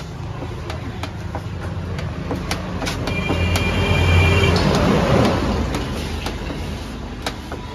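Car air-conditioning refrigerant charging setup at work: a steady low mechanical hum with regular ticking, and a rush of hissing refrigerant gas that swells about four seconds in and fades about a second and a half later as the gauge-manifold hoses are handled.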